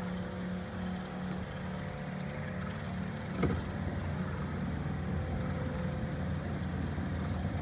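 A boat's motor running steadily at low speed, a low hum, with a single knock about three and a half seconds in.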